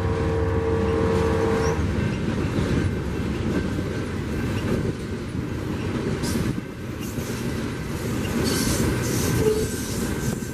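Freight train cars rolling past at speed: a steady rumble and clatter of steel wheels on rail from a covered hopper and a string of tank cars. A locomotive horn chord is sounding at the start and cuts off about two seconds in.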